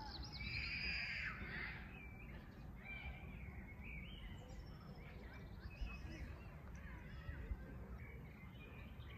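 Birds calling and chirping in short, scattered calls over a steady low background rumble, loudest about a second in.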